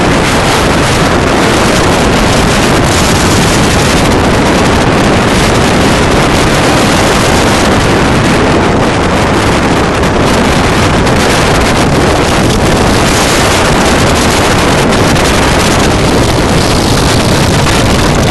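Strong wind blowing hard across the microphone: a loud, steady rushing noise that does not let up.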